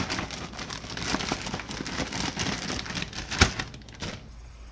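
Plastic Ziploc bag of breading and fish chunks being shaken: a busy crinkling rustle of the bag, with one loud thump about three and a half seconds in, stopping shortly after.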